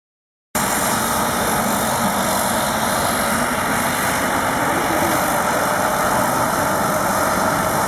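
The twin Walter M601E turboprop engines of a LET L-410 UVP-E Turbolet running steadily as it taxis, a steady hiss that cuts in about half a second in.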